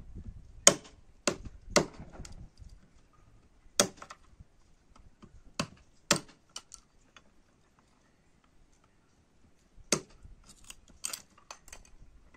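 Small hatchet chopping resinous pine fatwood into thin kindling sticks on a wooden stump: about eight sharp chops at uneven intervals, a quick run of them in the first two seconds and a quiet spell of a couple of seconds past the middle.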